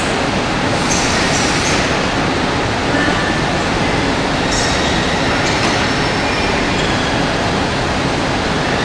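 EP09 electric locomotive standing at a platform with its equipment running: a steady, loud rushing noise with a few faint, brief high squeals.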